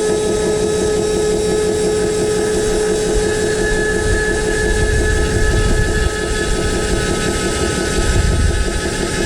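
Radio-controlled excavator's motors running with a steady whine, a second higher tone joining about three seconds in.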